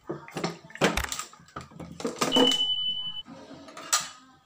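Kitchen clatter of a few sharp knocks and clinks as utensils are handled by the stove, with a single high beep lasting about a second midway.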